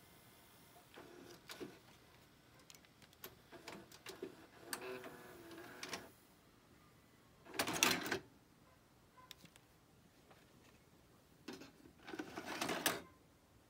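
Emerson EV787 VHS VCR's tape transport mechanism whirring and clicking as playback is stopped and the tape is unloaded, with a loud mechanical clatter about eight seconds in and a longer one near the end.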